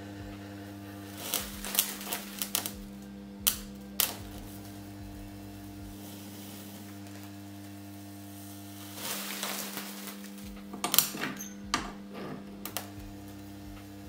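Two microwave oven transformers wired in series humming steadily as they drive heavy current through a screwdriver shaft clamped across their thick-wire secondary, heating it to a glow. Sharp crackling snaps from arcing at the output terminals come in clusters: a few in the first four seconds and a denser run from about nine to thirteen seconds in.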